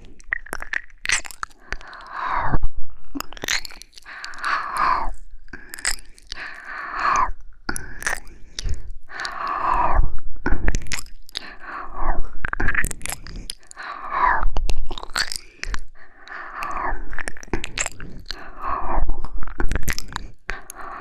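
Close-miked ASMR mouth sounds: slow, wet licking and kissing right at the microphone, coming in swells about every two seconds with many small wet clicks.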